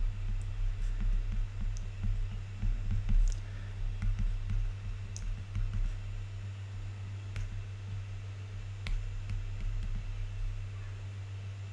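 A stylus writing on a tablet screen: scattered light taps as the pen tip strikes the glass, with soft low bumps that ease off near the end. A steady low electrical hum runs underneath.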